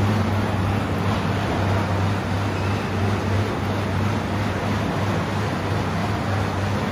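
Air bike (assault-style fan bike) being pedalled hard: its fan wheel spinning with a steady rush of air over a low hum.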